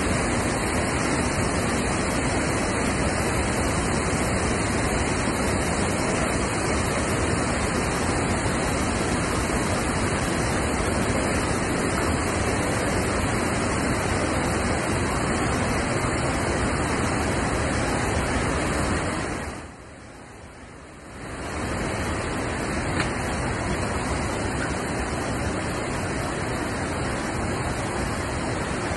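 Water rushing through a concrete dam spillway bay beneath stop logs being pulled: a steady, even rushing, which drops away briefly for about two seconds about two-thirds of the way through.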